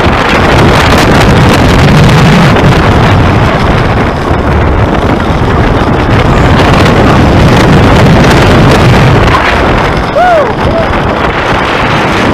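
Wooden roller coaster train running along its wooden track, its wheels rumbling, with loud wind rushing over the microphone.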